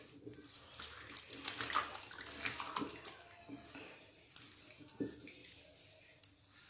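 A hand squeezing and kneading raw chicken pieces with sliced onion in a steel bowl: faint, irregular wet squelching with small crackles.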